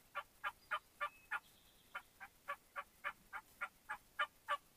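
Turkey yelping: a run of five short yelps, a brief pause, then about ten more at roughly three or four a second.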